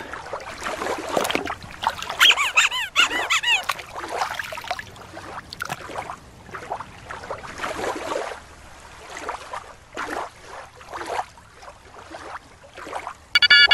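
Shallow water sloshing and splashing as a toy orca is dipped and moved through it, with a high warbling whistle-squeal lasting about a second and a half, about two seconds in. A short chime of bell-like tones right at the end.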